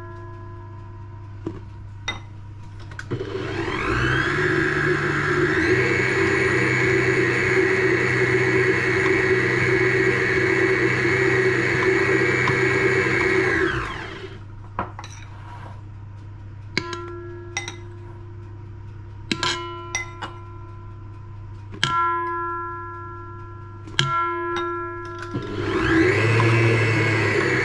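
Electric stand mixer running with its flat beater mixing flour into cookie dough. It runs for about ten seconds, shifting pitch once, stops, and starts up again near the end. Plucked-guitar background music is heard in the gap.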